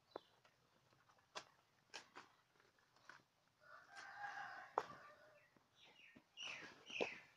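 A rooster crows faintly about halfway through, with scattered clicks and leaf rustles from goats pulling at leafy branches.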